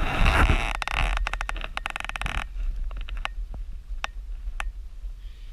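Walking through dry pine straw with the camera moving, a dense rustling and crunching with low rumble, which drops off sharply about two and a half seconds in to leave a few sharp crackles of needles and twigs.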